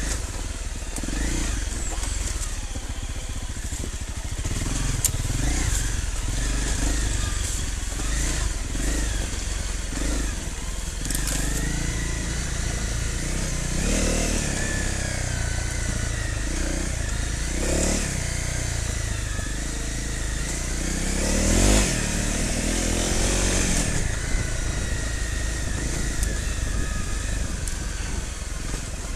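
Off-road motorcycle engine running under constantly changing throttle, the revs rising and falling several times, loudest a little past the middle. Occasional sharp knocks sound over the engine.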